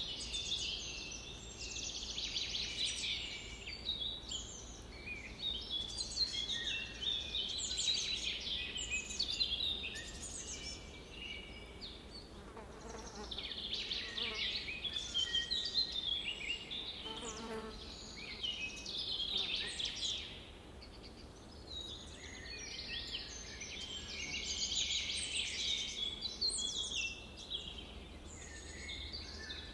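Many songbirds chirping and singing at once, a dense chorus of overlapping short calls and trills.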